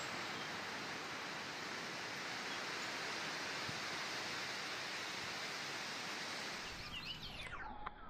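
Steady rushing noise with no clear source, like wind or moving water, that turns duller about seven seconds in as a few short bird chirps come in.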